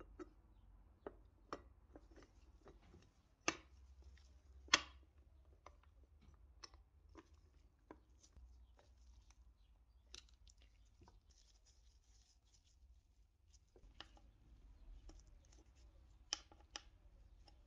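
Scattered light clicks and knocks of a metal belt guard being handled and set against a coin-counting machine's metal housing, with two louder knocks around four and five seconds in. Near the end, small clicks as its hex screws are driven in.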